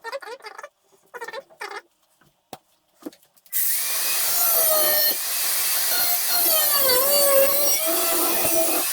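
Electric drill boring into steel, starting up about three and a half seconds in after a few light handling clicks. It runs steadily, and its pitch sags and recovers about seven seconds in as the bit loads up.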